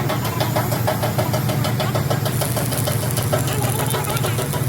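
An engine running steadily, with a rapid, even ticking or clatter of several strokes a second over it.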